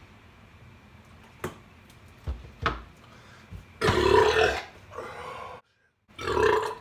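A man burping loudly twice, the first about four seconds in and the second near the end, bringing up gas from gulped carbonated soda. A few short knocks come before the burps.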